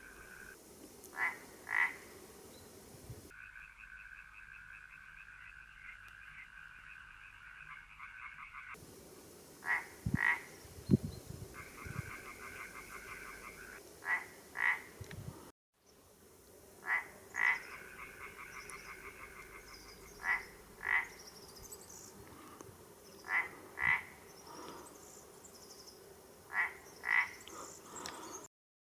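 Frogs calling at a pond: loud croaks in close pairs repeating about every three seconds over a steady trilling chorus that comes and goes. A few low thumps sound about ten seconds in, and the sound drops out briefly in the middle and cuts off just before the end.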